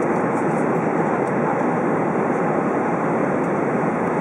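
Steady, even cabin noise inside an Airbus A320 taxiing after landing, its engines at taxi power.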